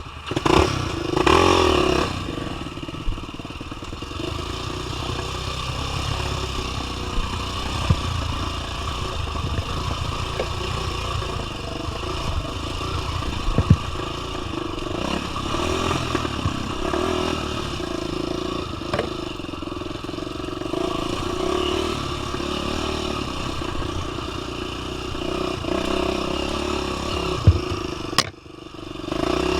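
Dirt bike's single-cylinder four-stroke engine running under throttle over rough trail ground, with scattered clattering knocks. The engine surges louder about a second in and drops off briefly near the end before picking up again.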